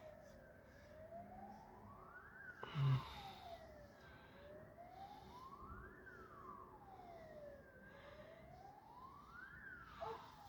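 A siren wailing, its pitch rising and falling in a regular cycle of about three and a half seconds. A short, louder sound breaks in about three seconds in.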